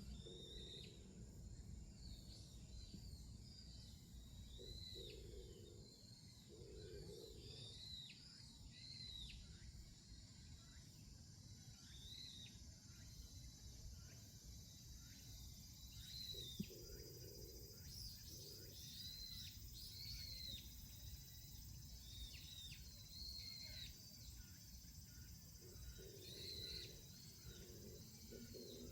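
Birds calling repeatedly with short, high, arching notes every second or two, over a faint steady hiss and a low rumble of wind. A single sharp click sounds about halfway through.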